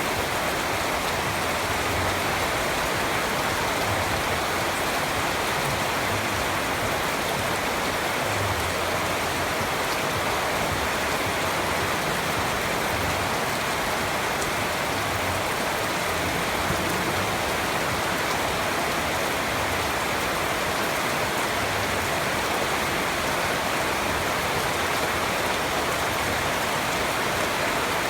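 Steady rain falling and pattering on surfaces, an even hiss with faint individual drop ticks.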